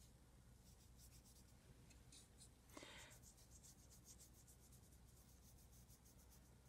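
Faint brushing of a paintbrush stroking back and forth across paper, spreading paint and marker ink, with a slightly louder scrape about three seconds in.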